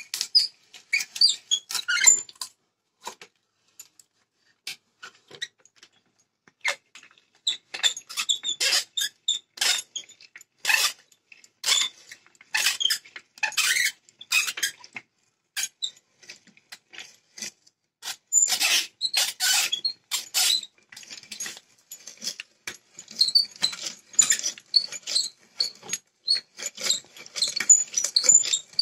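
A hand brace turning an auger bit into a wooden board, squeaking and rasping in short, irregular runs of strokes as the bit cuts, with brief pauses between the runs.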